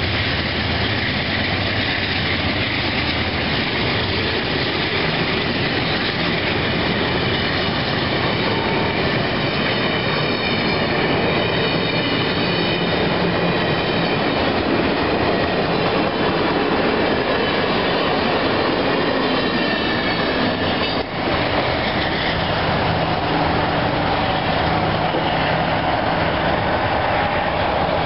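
Amtrak passenger train passing at speed: a steady rolling of steel wheels on rail with some clickety-clack. A high whine from the wheels runs through the middle stretch and stops about three-quarters of the way through.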